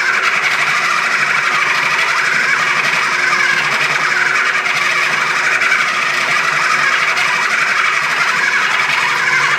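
KitchenAid food processor motor running steadily on low speed, its blade kneading yeast pizza dough that has already gathered into a ball.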